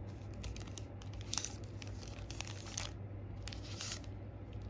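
Foil trading-card pack wrappers crinkling and crackling as they are handled and shuffled, in short bursts, over a faint steady low hum.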